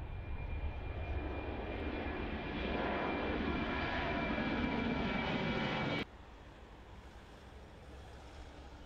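Twin turbofan jet engines of a US Navy P-8 Poseidon running at close range: a steady jet noise with a thin high whine, growing louder over about six seconds. It cuts off suddenly about six seconds in, leaving a faint low rumble.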